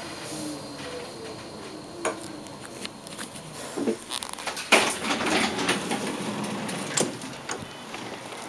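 Tram slowing with a faint wheel whine that dies away in the first second, then a run of sharp knocks and rattling clatter, loudest about halfway through, as the tram stops and the rider gets off.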